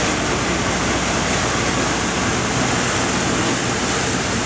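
Steady rush of water churned white by propeller wash along a steel fishing boat's hull, over the low, even hum of a ship's engine.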